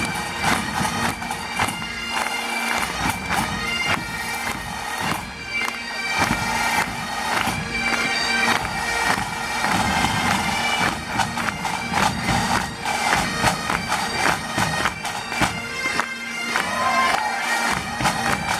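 Bagpipes playing a familiar Scottish tune: the chanter melody moves above a steady, unbroken drone.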